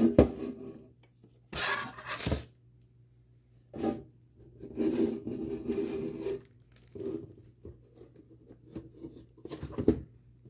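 Stiff clear plastic Funko Pop box protector being handled and fitted around the cardboard box, making rubbing and clattering sounds in several short bursts. The biggest bursts come about two seconds in and from about five to six seconds in.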